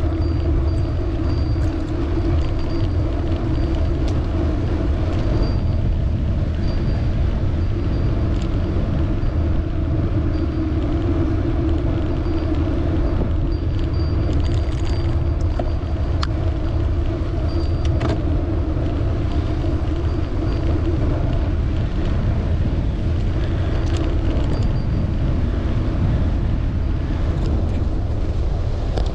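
Riding noise of a bicycle on the road, heard from the bike: a steady rumble of tyres and air rushing past the microphone, with a steady hum and a few faint clicks.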